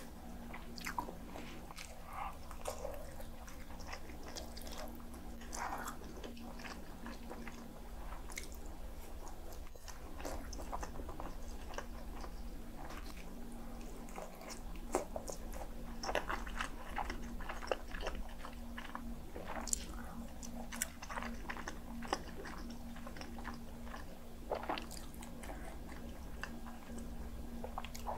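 Close-miked eating: a person biting and chewing soft Spam slices and tofu from kimchi stew, with many short wet mouth clicks and smacks. A faint steady hum runs underneath.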